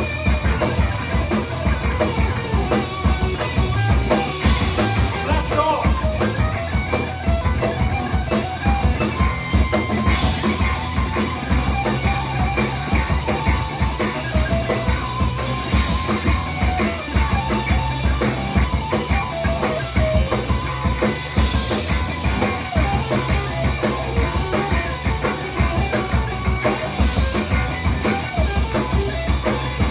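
Rock band playing live: electric guitar and electric bass through amplifiers over a drum kit keeping a steady beat.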